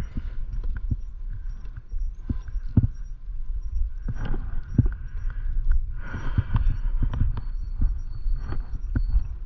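E-bike coasting downhill, heard as a low, steady rumble of wind on the microphone with frequent short rattles and knocks from the bike and its load going over bumps.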